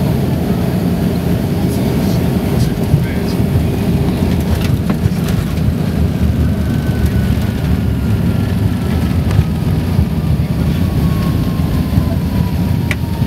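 Airliner cabin noise close to landing: a loud, steady low rumble, with a faint tone sliding slowly down in pitch over the second half.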